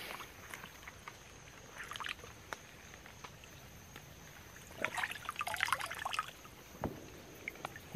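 Creek water splashing and trickling as a CNOC collapsible water bag is dipped and lifted out, with a thin stream dribbling from its spout back into the water. Mostly faint, with a short burst of splashing about five seconds in.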